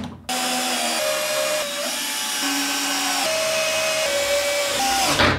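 Cordless drill/driver running, driving screws through wooden blocks into a plywood table top, its motor pitch stepping up and down several times as the trigger is worked. It starts just after the beginning and stops shortly before the end.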